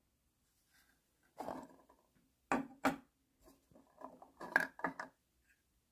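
A black 3D-printed plastic ammo box being opened and handled: a scraping rub, then two sharp plastic clicks about half a second apart as the lid comes free, followed by a run of lighter clicks and knocks from the box and the brass rifle cartridges inside it.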